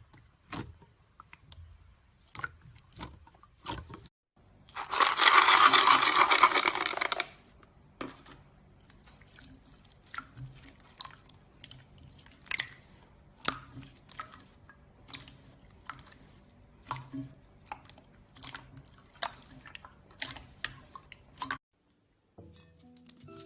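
Runny slime being handled. It makes scattered sticky clicks and pops, with a loud burst of dense crackling about five seconds in that lasts around two seconds.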